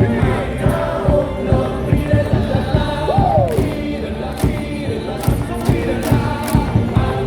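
Baseball stadium crowd singing a cheer song in unison over loud amplified music with a steady beat.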